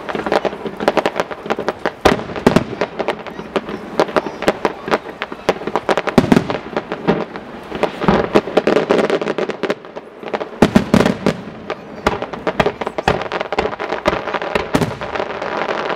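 Aerial firework shells bursting in quick succession, a dense stream of bangs, pops and crackle that barely lets up, with the heaviest volleys about halfway and two-thirds through.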